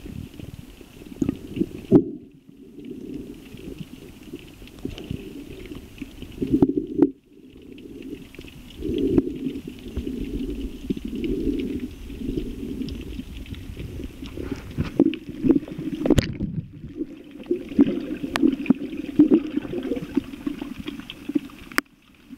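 Muffled underwater noise picked up by a submerged camera in shallow sea: a continuous low rumbling and sloshing of water with scattered sharp clicks, dropping out briefly twice.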